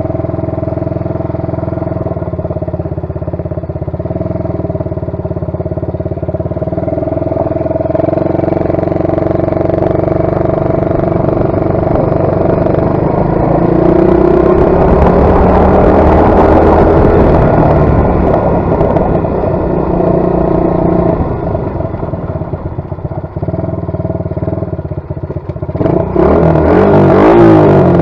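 Small 125cc ATV engine running under way, picking up speed and getting louder around the middle, then revving up again near the end.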